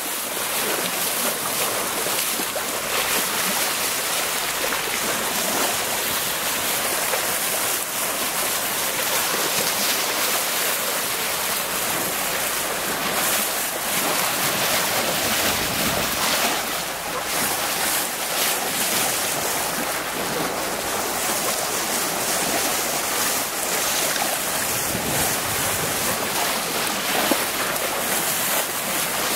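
Sea water rushing and splashing steadily along the bow of a sailboat under way, with wind on the microphone.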